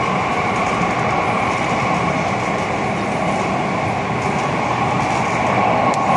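Mumbai Metro Line 3 underground train running through the tunnel, heard from inside the car: a steady rumble and rush of wheels and air with a faint steady whine.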